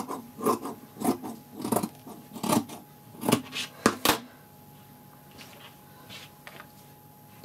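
Scissors snipping through furry fabric: a run of about five cuts, roughly one every two-thirds of a second, then two sharp clicks about four seconds in, followed by faint handling of the fabric.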